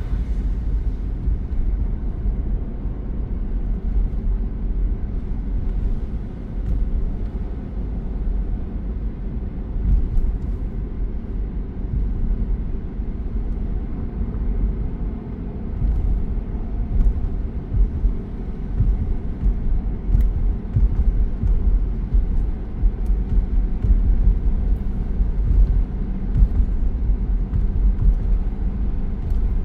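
Car driving along a road: a steady low rumble of engine and tyre noise that holds even throughout.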